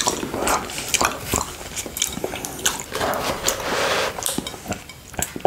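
Close-miked wet mouth sounds of a tongue licking honey off a glass dish: a run of sticky licks, lip smacks and small wet clicks.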